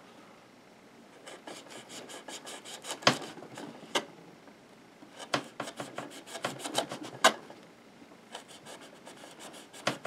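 The small blade of a Leatherman Free T4 multi-tool sawing through a thick, tough black cord on a board: a run of short back-and-forth cutting strokes starting about a second in, with a few sharper clicks as the blade bites through.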